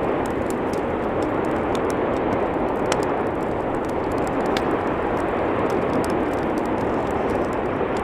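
Steady roar of an erupting volcano: a continuous rushing noise with scattered faint crackles.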